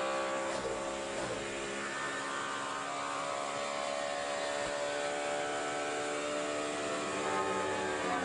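Onboard sound of a NASCAR Sprint Cup Chevrolet stock car's pushrod V8 held at full throttle: a steady high-revving drone from inside the cockpit, its pitch rising and falling only slightly.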